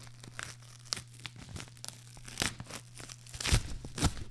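A paper mailing envelope being torn open close to a microphone: crinkling and crackling paper, with the loudest rips in the second half.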